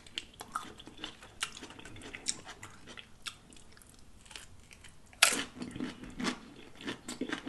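Close-miked chewing of loaded shrimp nachos: tortilla chips crackling and crunching in the mouth, with a louder crunchy bite about five seconds in.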